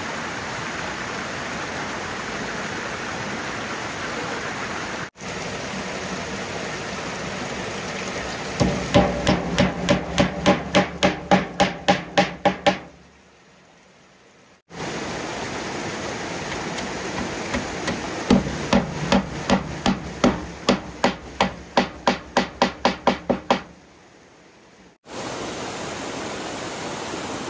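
Two runs of quick, regular hammer blows, about three a second, each strike with a short ringing tone, over a steady rush of flowing water.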